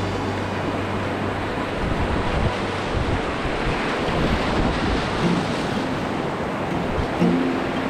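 Whitewater rapids rushing and splashing around a kayak running them, heard through an action camera's microphone with water and wind buffeting it. A low held note of background music fades out about two seconds in.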